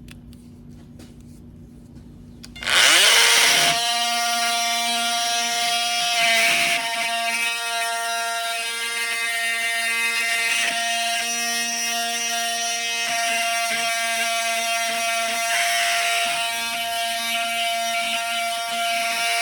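Makita XMT03 cordless oscillating multi-tool fitted with a 180-grit sanding pad. It is switched on about three seconds in and runs with a steady high-pitched whine while sanding into the corners of a notch in wood.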